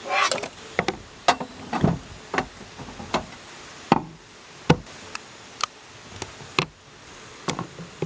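A dozen or so sharp, irregular knocks and taps, about one or two a second, like hard objects being handled and set down.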